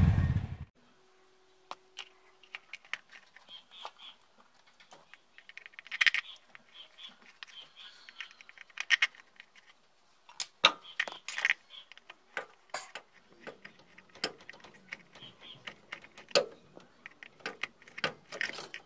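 A Bajaj RE 205 auto-rickshaw's four-stroke engine dies away in the first half second. Scattered light clicks and small metallic taps follow, from hands handling the neutral switch wiring on the gearbox.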